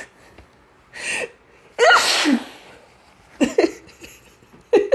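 A woman sneezing in an allergy sneezing fit: a sharp in-breath, then one loud sneeze about two seconds in with a falling voiced 'choo', followed by shorter sneeze bursts in the last second and a half.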